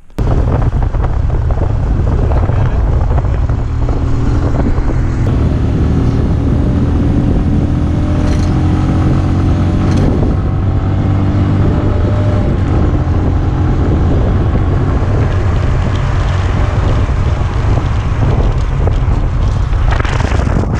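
Heavy wind buffeting on the microphone of a camera riding on a moving motorcycle, with the motorcycle's engine running underneath and its note rising slowly for a few seconds in the middle.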